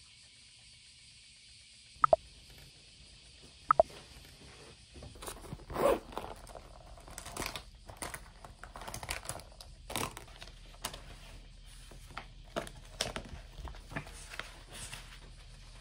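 Two sharp clicks, about two seconds in and again just before four seconds, then a run of irregular rustling, scraping and crinkling as pens are taken out of a fabric pencil pouch and printed paper sheets are handled and leafed through.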